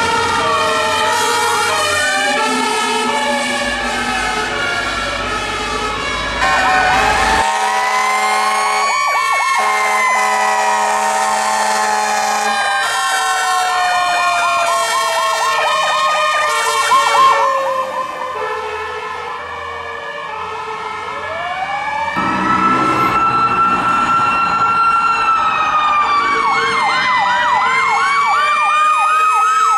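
Fire truck sirens on responding apparatus, several overlapping: some in a slow rising and falling wail, others in a rapid yelp. The mix changes abruptly twice as different trucks pass.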